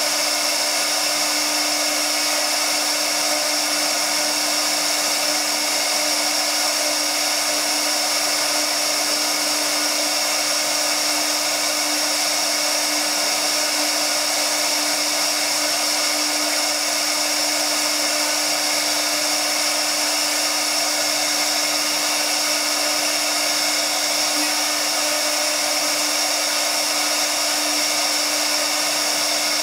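Tiptopcnc 1325 CNC router spindle running at speed while its bit carves a relief pattern into MDF board: a steady pitched hum under a continuous hiss of cutting, unchanging in level.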